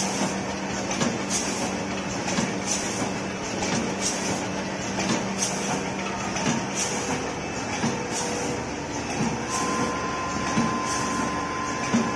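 Rotary premade pouch packing machine running. A short burst of sound repeats about every 1.3 s, one for each cycle, over a steady running noise. A thin steady tone comes in near the end.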